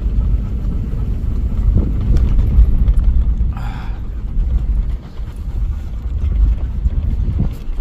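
Vehicle driving, a loud low rumble with a brief higher rushing sound about three and a half seconds in.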